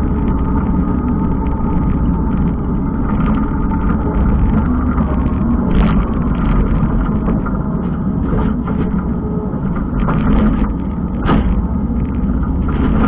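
Kubota skid steer's diesel engine running steadily under work, with a few short clanks and rattles from the machine and its rake attachment.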